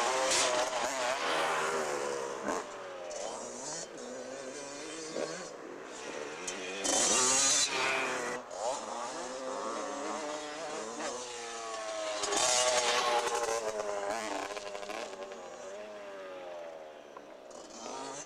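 80cc two-stroke motocross bikes revving around a dirt track, engine pitch rising and falling as they accelerate and back off. Loudest as a bike passes close at the start, again about seven seconds in and again about thirteen seconds in.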